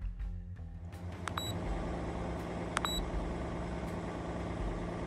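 Mercedes E320 CDI diesel engine idling steadily, with two short electronic beeps about a second and a half apart as the scan tool erases the P0673 and P0674 glow plug codes.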